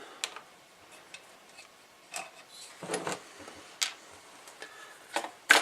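Scattered clicks, taps and light rubbing of small parts of a handheld radio being handled and taken apart by hand, with a heavier knock about three seconds in and the sharpest click near the end.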